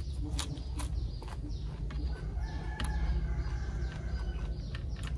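A rooster crows once in the background, a long drawn-out call in the middle, over a few sharp clicks and a steady low rumble.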